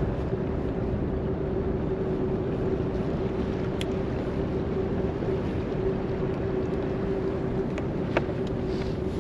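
Bass boat's trolling motor humming steadily at one pitch under the low noise of wind and current, with two faint clicks.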